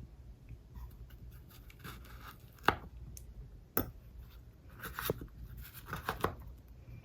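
Jewelry being handled while rings are tried on: a handful of light, sharp clicks and taps, the sharpest about a third and halfway in, with a small cluster near the end, over a faint low hum.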